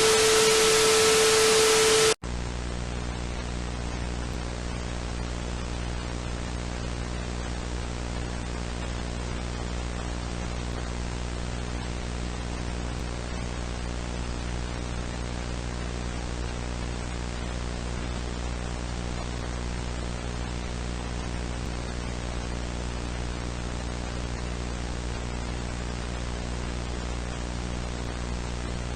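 A loud burst of broadcast static with a steady mid-pitched tone cuts off suddenly about two seconds in. It gives way to a steady electrical hum under hiss, the dead-air sound of a broadcast signal.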